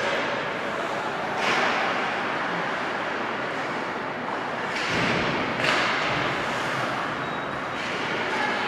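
Ice hockey play in an echoing indoor rink: skate blades scraping and carving on the ice over a steady hiss, with sharper scrapes or stick-and-puck hits about a second and a half in, near five seconds, and just before six seconds.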